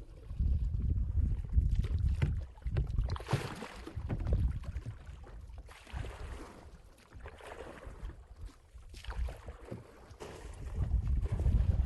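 Gusty wind buffeting the microphone, with a few stretches of rushing hiss between the gusts.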